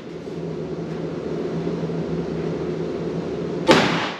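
A steady low rushing hum, then a single semi-automatic pistol shot near the end, a sharp crack that rings off the walls of the indoor range.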